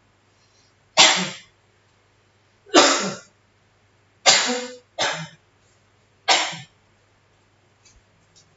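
A person coughing five times in a row, loud and harsh, with short gaps between the coughs.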